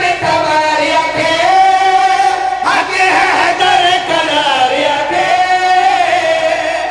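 Several men singing a devotional verse together into microphones, amplified over a PA. They hold long, wavering notes in a chant-like style, with the voices overlapping most thickly about halfway through.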